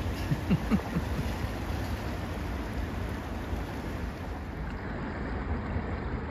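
Wind noise on the microphone over the steady rush of a fast-flowing river current, with a few short louder sounds just under a second in.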